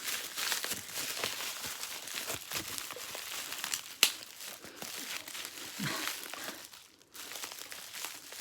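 Packaging crinkling and rustling as it is handled and unwrapped, with a sharp click about four seconds in.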